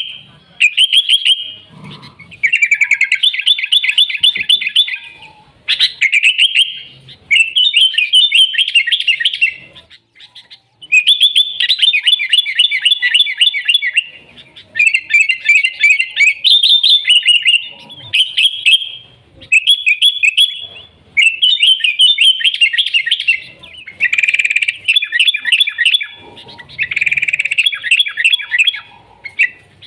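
Sooty-headed bulbul (kutilang) singing in full song: phrase after phrase of rapid, chattering notes, each phrase a second or two long with short pauses between.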